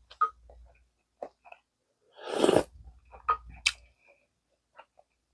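Close-miked eating sounds of gamjatang, pork-bone stew: wet mouth clicks and chewing, with one louder, longer eating sound about two seconds in and a few sharp clicks after it.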